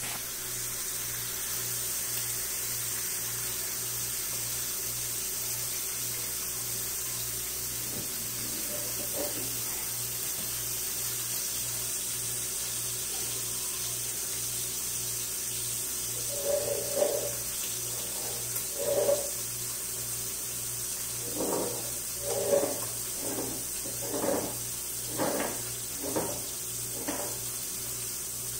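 A baby's short, high-pitched babbles and grunts, a few around the middle and coming quickly one after another near the end, over a steady rushing hiss like running water with a low hum beneath it.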